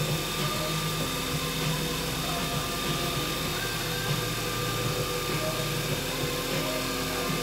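Wood lathe motor running steadily, spinning a pen blank on its mandrel while sandpaper is held against the turning blank.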